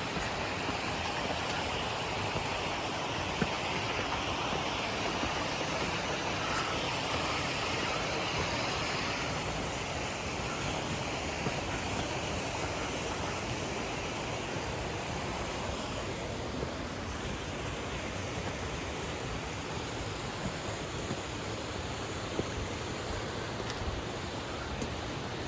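Steady rushing noise of the Birthi waterfall's falling water.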